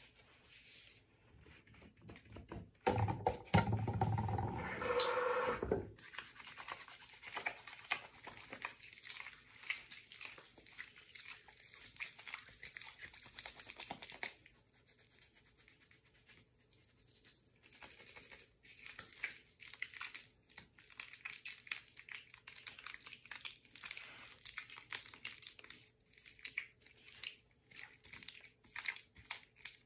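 Soapy hands rubbing together, the lather squishing and crackling in a fast, uneven stream of small wet sounds. About three seconds in, a louder, fuller noise lasts for about three seconds.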